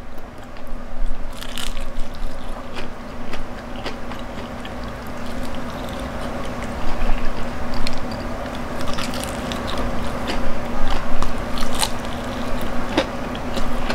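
Close-up biting and chewing of a crispy fried chicken drumstick: the battered skin gives many irregular crunches and crackles, with wet mouth sounds between them. A steady low hum runs underneath.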